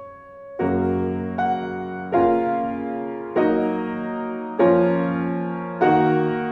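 Grand piano played slowly: after a brief lull, full chords are struck about once a second and each is left to ring and fade.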